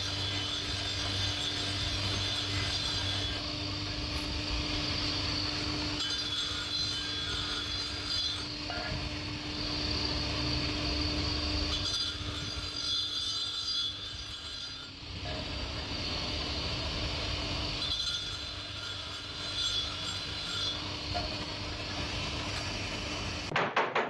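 A machine running steadily: a low hum with a steady mid-pitched tone over a hiss, its sound changing every few seconds.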